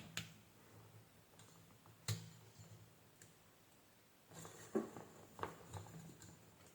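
A few faint, sharp clicks and taps of multimeter test probes being set against a diode on a hair dryer's circuit board, over a faint low hum.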